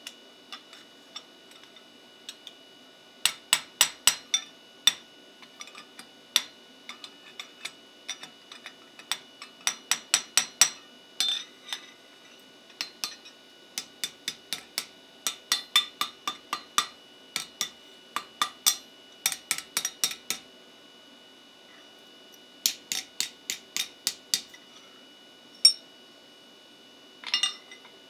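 Hand hammer striking a steel drift into a hot ferrule on the anvil, in runs of quick blows, about three a second, with short pauses between runs and a steady metallic ring behind them. The drift is opening the ferrule into a clean oval to match the axe eye.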